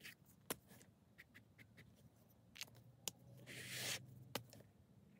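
Fine-tip black pen drawing on sketchbook paper: faint scratches and small taps of the tip, with one longer, louder scratchy stroke a little past the middle.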